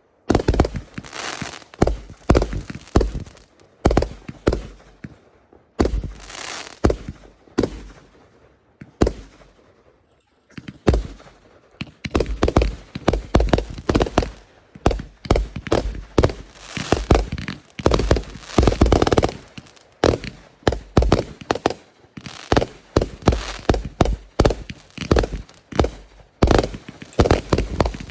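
Fireworks going off: scattered loud bangs for the first ten seconds or so, then a dense, rapid barrage of bangs from about ten seconds in.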